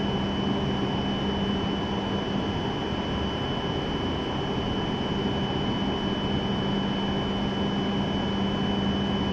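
Steady hum and hiss of a stationary E7 series Shinkansen train, its auxiliary equipment and air conditioning running at the platform, with a constant low drone and a constant high whine.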